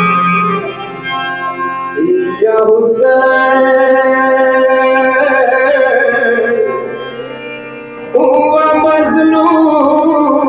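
Instrumental music of sustained, organ-like melodic notes. It dips in level twice and comes back louder, with a new phrase about two and a half seconds in and another about eight seconds in.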